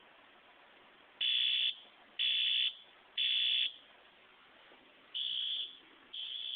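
System Sensor fire alarm horn sounding in the temporal-three pattern: three short high beeps about a second apart, a pause, then two more, the last two quieter. It is running on a reduced supply of about 5.4 volts.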